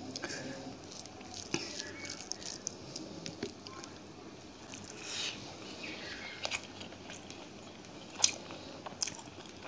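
Quiet eating sounds: chewing with scattered lip smacks and small clicks as rice and chicken curry are mixed and eaten by hand.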